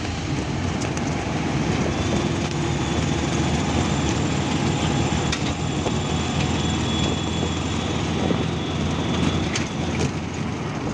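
An auto-rickshaw's engine runs in a steady low drone with road and traffic noise as it drives along, heard from on board.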